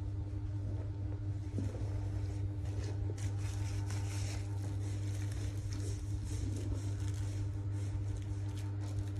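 A fabric dust bag and the plastic wrapping on a handbag's handles rustling and crinkling as the bag is handled, over a steady low hum. The rustling gets denser about three seconds in.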